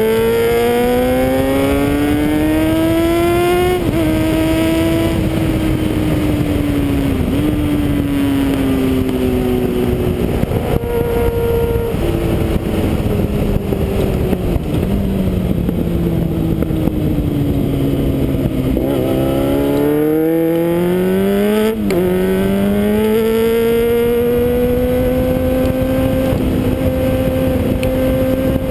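Sport motorcycle engine heard from the rider's helmet camera, with wind rushing over it. The revs climb with a couple of sudden drops at gear changes, then fall away slowly as the bike slows. Near the end the engine pulls up again and holds a steady pitch.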